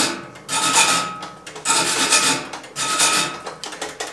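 Hand wire brush scrubbing a freshly welded steel frame in long rasping strokes, about one a second, cleaning the weld.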